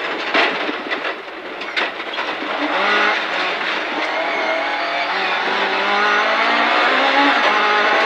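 Sunbeam 1400 rally car's engine, heard from inside the cabin, pulling hard up a gravel straight. Its revs climb steadily and then drop with a gear change about seven seconds in, over the rush of tyres and stones on gravel.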